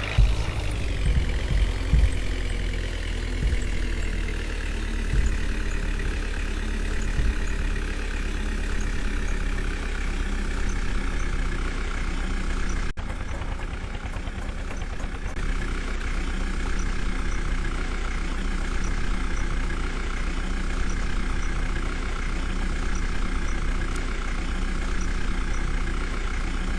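Heavy diesel engine running steadily. Its revs fall right at the start, then hold an even speed.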